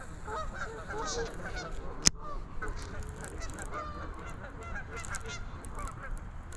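A flock of geese honking, many short overlapping calls going on all the while, with one sharp click about two seconds in.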